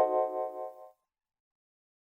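Xylophone jingle ringing out as a chord of several notes and fading away about a second in.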